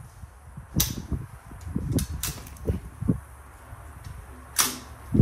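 Metallic clacks and clicks from a Colt AR-15 9mm carbine's action being worked by hand to clear a jammed round, with duller handling knocks in between. There are four or five sharp clacks, the loudest near the end.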